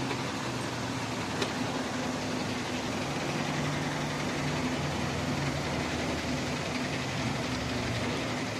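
An engine idling steadily, with a single sharp click about one and a half seconds in.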